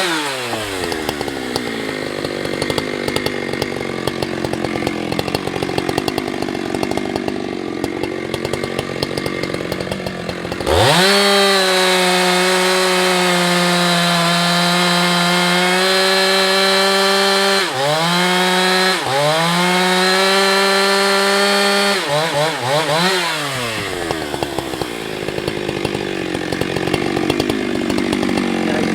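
Two-stroke chainsaw dropping to idle, idling for about ten seconds, then revved to full throttle near the middle and held there through two long cuts into a log, with a short drop between them. It is blipped a few times and then settles back to idle near the end.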